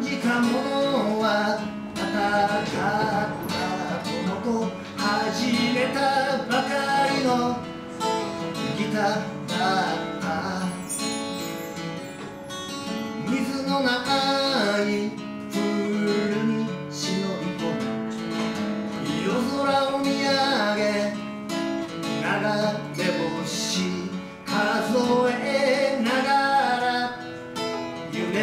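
Live acoustic guitar music: a strummed acoustic guitar with a melody line over it.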